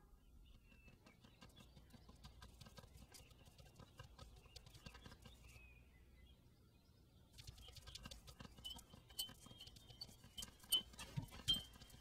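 Faint, irregular clicking and ticking, sparse at first and growing denser and louder in the second half.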